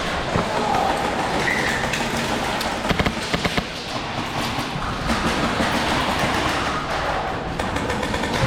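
Airsoft gun fired in a rapid burst of sharp cracks about three seconds in, over a steady rushing noise from the player moving.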